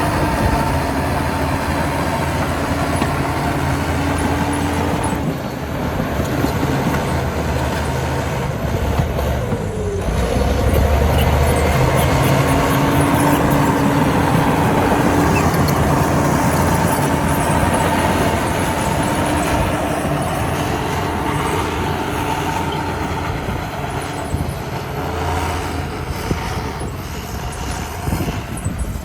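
Heavy diesel earthmoving machinery running steadily under load, its engine note dipping and coming back up about ten seconds in.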